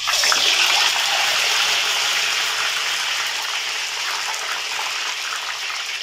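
Salted plantain pieces dropped into hot cooking oil, the oil fizzing up into a loud, frothy sizzle that starts suddenly and slowly eases. The salt on the plantains makes the oil bubble up hard.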